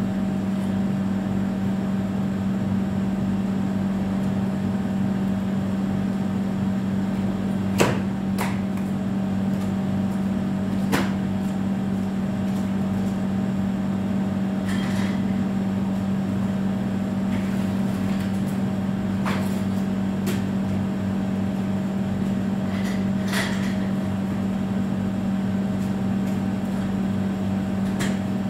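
Steady mechanical hum of a running motor, with a few sharp knocks and clicks scattered through it.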